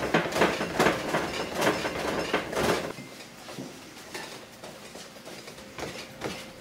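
Buckwheat soba dough being kneaded by hand on a wooden board: a quick, even run of thuds and rubs, about two or three a second, then after about three seconds fewer, softer ones.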